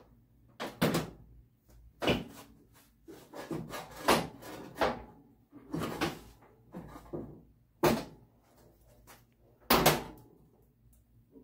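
Sheet-metal hood panels of a 1926 Ford Model T being fitted and closed: a series of clanks and rattles, about seven sharp ones, with quieter scraping and handling between.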